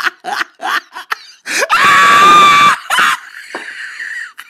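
A person's voice laughing in quick, evenly spaced bursts, then breaking into a loud, high-pitched scream held for about a second, followed by a thinner, sustained cry.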